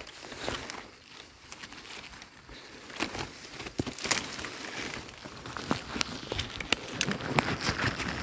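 Dry leaves and twigs crackling and rustling in irregular snaps, getting busier about three seconds in.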